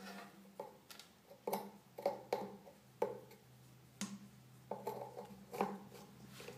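A plastic three-pin plug knocking and clicking against a metal faucet, about a dozen sharp, irregular knocks, as its earth pin is being forced off.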